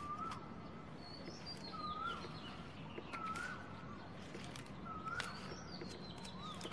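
Birds calling: a short rising-and-falling call repeated five times at uneven gaps of one to two seconds, with higher sliding chirps between them. Scattered sharp clicks over a low steady background.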